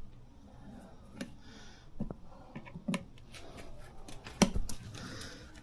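Tire spoons levering a tire bead off a motorcycle wheel: scattered clicks, knocks and scrapes of the levers against the rim and rubber. The sharpest knock comes about four and a half seconds in.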